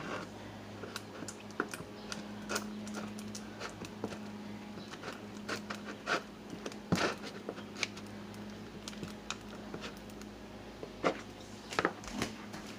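Spoon stirring and scraping sticky, melted gummy candy in a bowl: irregular small clicks and scrapes, with a faint steady hum underneath.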